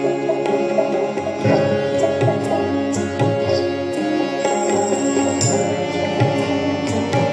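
Live Indian light-music ensemble playing an instrumental interlude: harmonium and keyboard holding notes, acoustic guitar, and tabla keeping a steady beat.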